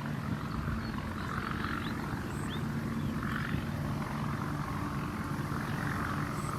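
Steady low engine drone from a motor running, with a few faint high chirps over it.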